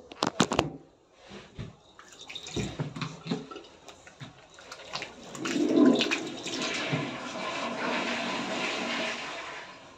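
A toilet flushing: a surge of rushing water about five and a half seconds in that runs on steadily and dies away near the end, after a few clicks and knocks in the first seconds.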